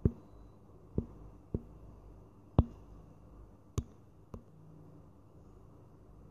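Six sharp, irregularly spaced taps, the loudest at the very start and about two and a half seconds in, over a faint steady low hum.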